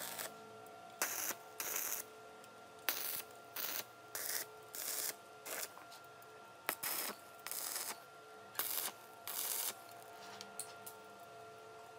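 Electric arc welding of steel tube: a string of about a dozen short crackling hisses, each under half a second, as tack welds are struck one after another along the frame's joints. They stop about ten seconds in, leaving a few faint clicks.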